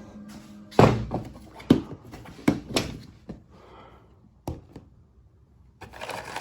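Several sharp knocks and thunks of hard objects being handled and set down, then a short rustle near the end.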